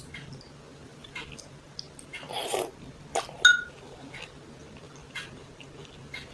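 Quiet eating sounds: light clicks and clinks of a utensil against a bowl, with a short noisy mouth sound about two and a half seconds in, as noodles and soup are eaten.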